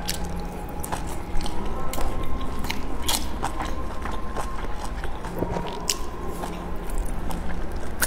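Close-up biting and chewing of dumplings, with many short, wet mouth clicks scattered throughout over a faint steady hum.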